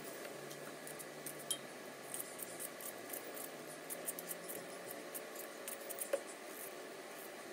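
A small kitchen knife cutting raw vegetables into sticks by hand: a run of light, crisp clicks and scrapes as the blade goes through the flesh.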